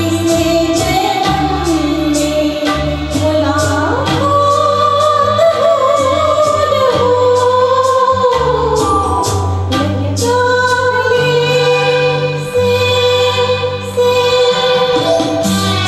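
A woman singing a slow Hindi film song into a handheld microphone over a recorded backing track with bass and a steady beat. Near the end her singing stops and the backing music carries on.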